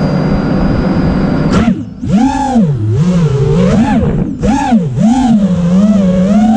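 An FPV racing quadcopter's four iFlight Xing 2306 brushless motors, recorded from the drone's own camera. They hum steadily at armed idle with a thin high whine, then about a second and a half in they throttle up for take-off. After that their pitch sweeps up and down again and again with the pilot's throttle changes.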